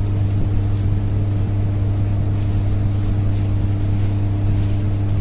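A steady low machine hum, like a running motor or engine, holding an even pitch, with a few faint clicks of small metal parts being handled.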